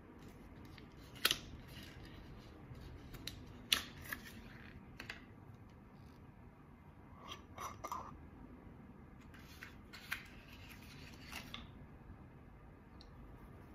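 A glass jar being opened by hand: sharp crackles and snaps as the plastic wrapping around the cap is torn off, then a short squeaky scrape as the cap is twisted loose about seven to eight seconds in, with a few lighter handling clicks after.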